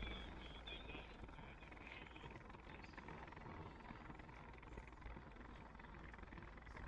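Near silence: faint outdoor ambience with a steady low rumble, and a few faint high chirps in the first second.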